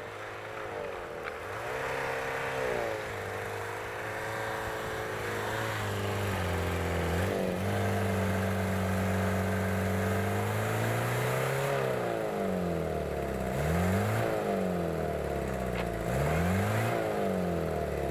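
Toyota off-road truck's engine revving as it ploughs through deep snow, its pitch rising and falling over and over, with several quick dips and climbs in the second half.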